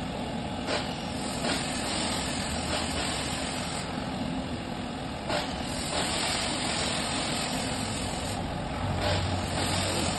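Fan-assisted stove fire burning: a steady blowing noise with a low hum under it and a few brief crackles.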